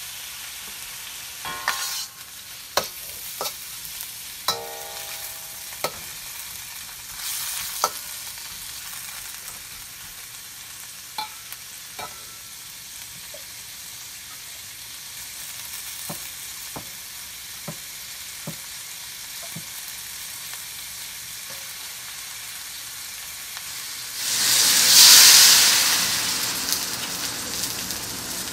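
Food sizzling steadily in a hot oiled pan, with scattered clicks and taps of a utensil against the pan. Near the end a sudden loud surge of sizzling swells up and then slowly dies back down.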